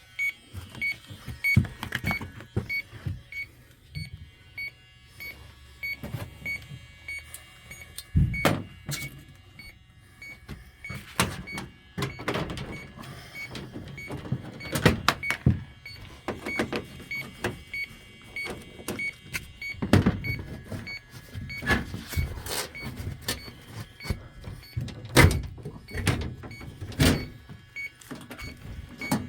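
Electronic refrigerant leak detector beeping steadily at an even pace while it is swept over an evaporator coil in a leak search. Repeated knocks and clatter of metal panels and tools being handled, under a low steady hum.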